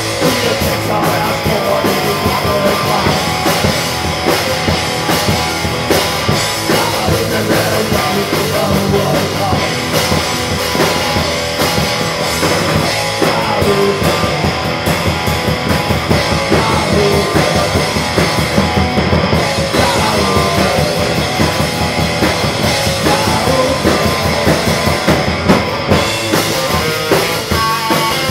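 Rock band playing live, with drum kit and guitar in a loud, driving punk-rock style.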